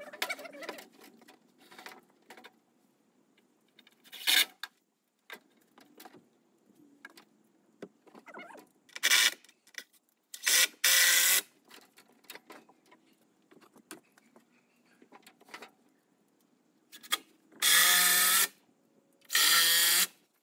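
Cordless power drill running into a timber deck beam in about five short bursts, the last two and one in the middle each lasting close to a second.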